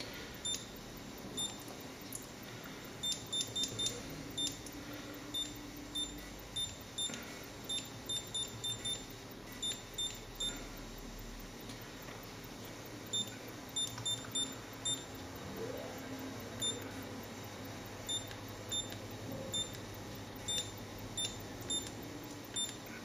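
Handheld digital oscilloscope beeping as its buttons are pressed: many short, high electronic beeps at irregular spacing, sometimes several in quick succession, as its settings are stepped through.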